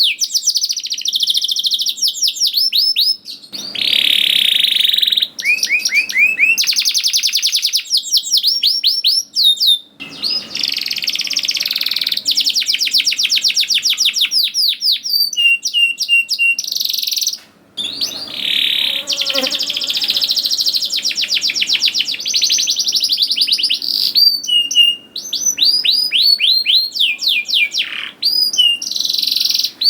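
Domestic canary singing a long, continuous song of fast rolling trills and rapid repeated chirps, high-pitched, with a few brief pauses between phrases.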